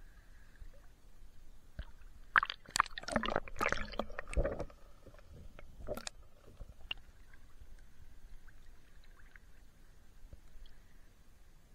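Sea water splashing and gurgling right at the microphone as it moves through the surface. There is a thick cluster of splashes about two to four and a half seconds in, another splash near six seconds, then faint lapping.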